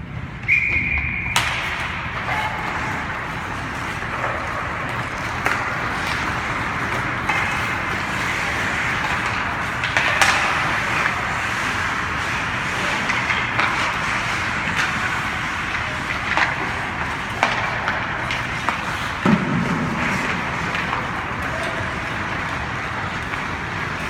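Hockey game in play: steady rink noise with frequent sharp clacks and knocks from sticks, puck and boards.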